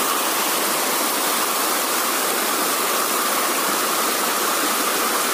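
Water of a small stream cascade pouring over rocks, a steady, unbroken rush.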